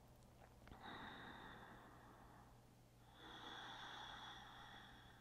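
Faint, slow, deep breathing while holding a seated yoga twist. There are two long breath sounds, the first starting about a second in and the second about three seconds in.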